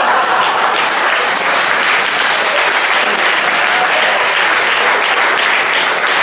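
Audience applauding a roast joke's punchline: dense, loud clapping that swells just before and stays steady, easing only slightly.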